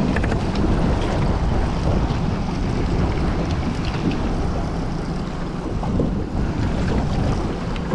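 Steady wind buffeting the microphone over water washing around a small fishing boat, with a few faint ticks.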